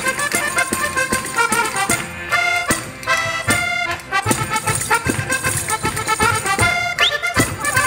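Diatonic button accordion (organetto) playing a fast saltarello dance tune with percussion keeping the beat. About two seconds in the beat drops out for a few held accordion chords, then the rhythm picks up again.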